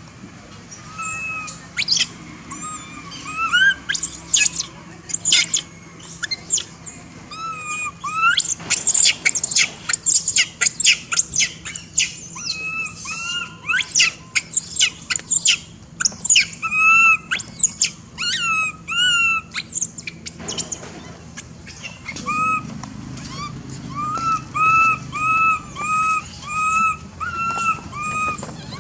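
Animal calls: many short, high chirping and squeaking notes, thick and sharp through the middle, then settling near the end into a regular series of about two short rise-and-fall calls a second.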